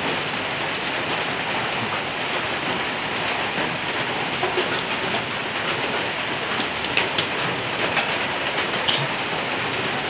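Steady rain falling: an even, unbroken hiss with a few faint ticks of single drops.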